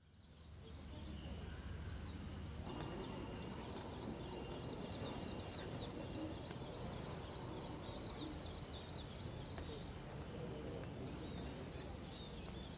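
Outdoor garden ambience fading in: a steady low rumble and hiss, with small birds chirping in quick runs of high notes from about three seconds in.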